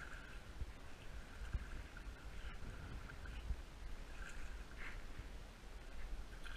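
Wind rumbling on the microphone while a hooked striped bass splashes at the surface as it is drawn in against the bank.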